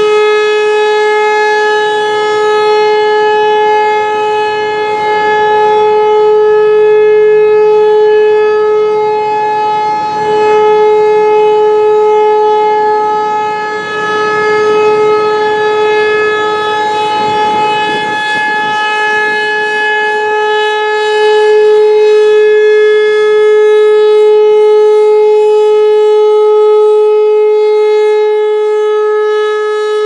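ASC Tempest T-135 rotating electromechanical outdoor warning siren sounding a steady single-tone alert. The pitch holds level while the volume swells and fades slowly as the horn rotates toward and away from the listener.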